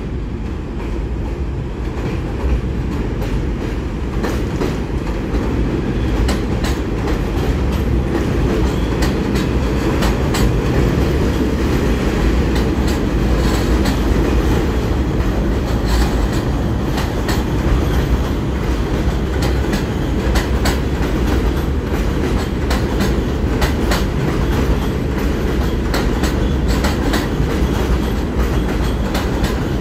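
R46 subway train rolling slowly past: a steady low rumble that swells a little as it draws near, with frequent sharp wheel clicks on the track that come thicker once the cars are alongside.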